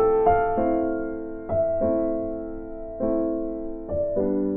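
Background music: a gentle electric piano playing soft chords, each struck and left to fade.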